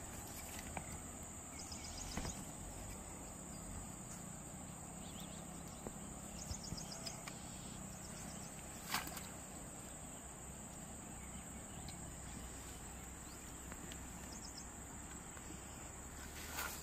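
Steady high-pitched insect drone over quiet outdoor ambience, with a few short rapid trills and a single sharp click about nine seconds in.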